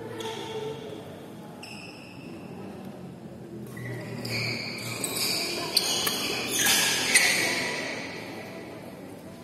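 Badminton rally: sharp racket strikes on the shuttlecock, the loudest about six and seven seconds in, with shoes squeaking on the court floor from about four seconds in.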